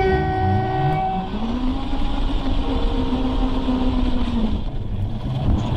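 Scale RC truck's electronic sound module: a steady tone sounds at the start for about a second, then the simulated diesel engine revs up, holds, and drops back near the end.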